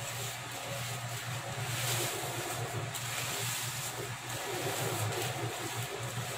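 Crisp fried onions being crumbled to a powder by hand on a plate: a dry, crackling rustle over a steady low hum.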